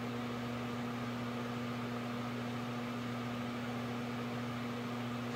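Steady low electrical hum with a light hiss from a CB radio setup, unchanging throughout.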